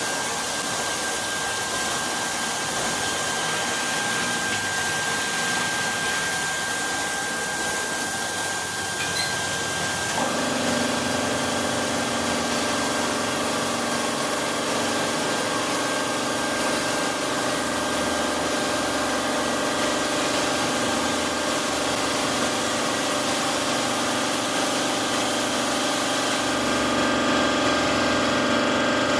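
LeisuWash touchless car wash spraying water and foam under high pressure: a steady hiss. About ten seconds in, a machine hum with several steady tones joins it.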